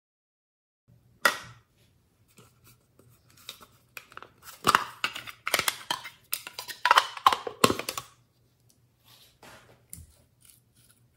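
Close-up handling of a nail polish bottle, its cap and brush and a clear plastic box. There is a sharp click about a second in, then a run of quick scraping and clicking strokes, loudest in the middle, that thins out into a few small clicks.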